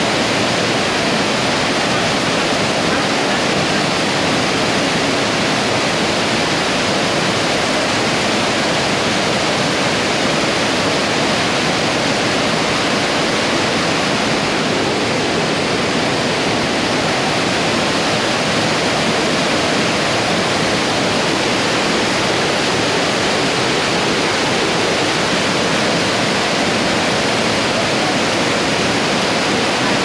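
Waterfall pouring into a plunge pool: a steady, unbroken rush of falling water.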